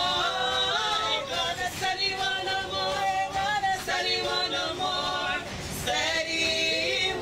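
A small group of women singing together, with the lead voice going through a handheld microphone.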